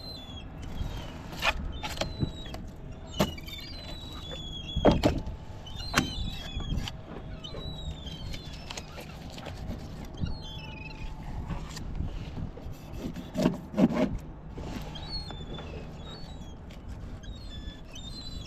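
Fillet knife working through a striped bass on a plastic cutting board: scraping and crunching as the blade cuts along the backbone and ribs, with a few sharp knocks, the loudest about five and fourteen seconds in. Small birds chirp in the background over a steady low hum.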